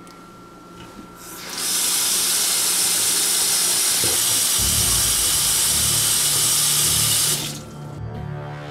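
Kitchen faucet turned on, water running into a stainless steel sink; the flow starts about a second and a half in and is shut off near the end.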